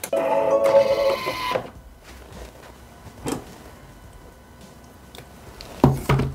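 Thermomix TM6 whirring mechanically for about a second and a half, then a click about three seconds in and a knock near the end as its lid is lifted off and set down.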